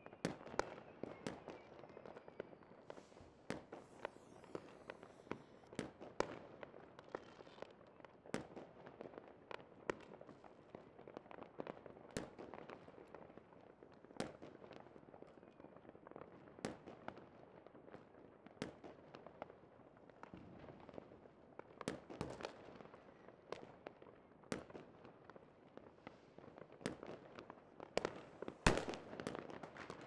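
Fireworks display: irregular sharp bangs and cracks, sometimes several in a second, over a continuous rumble of shell bursts, with a high hissing whistle about three seconds in. The loudest bangs come near the end.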